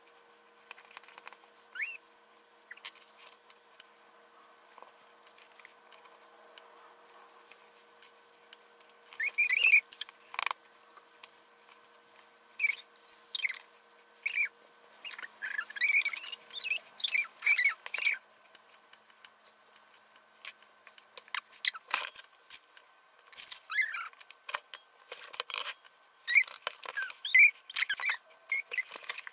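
A white fabric marking pen squeaking as it is drawn in short strokes across black cloth. The strokes come in three runs of quick squeaks, with quiet stretches between them.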